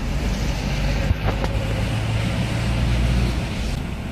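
A vehicle's engine and tyres on a wet road, heard from inside the cabin: a steady low drone with a couple of light clicks a little over a second in.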